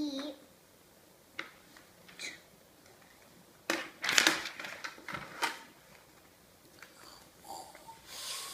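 Handling noises: a couple of sharp clicks, then a short burst of rustling and tapping about four seconds in.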